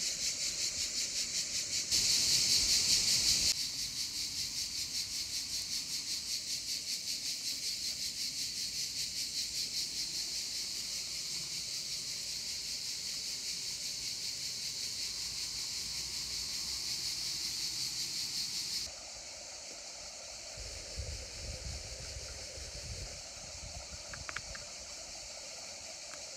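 Insects buzzing in a dense, fast-pulsing high drone that stops abruptly about two-thirds of the way through. After that comes a softer rushing of river water, with a few low gusts of wind on the microphone.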